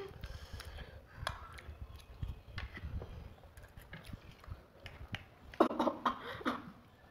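Two people eating instant noodles with forks: small clicks of forks against plates and low chewing sounds, with a brief vocal sound from one of them about five and a half seconds in.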